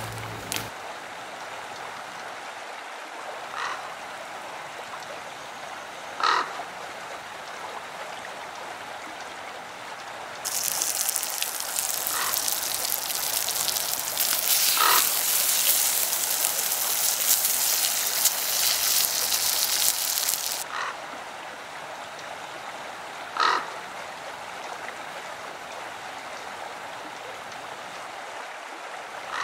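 Woodland background with a handful of short, harsh bird calls several seconds apart. For about ten seconds in the middle, sausages sizzle loudly in a frying pan over a campfire; the hiss starts and stops abruptly.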